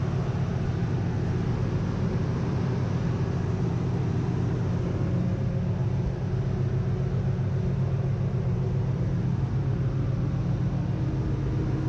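Steady low drone of a ship's engine-room machinery, with a few held hum tones and no change in level.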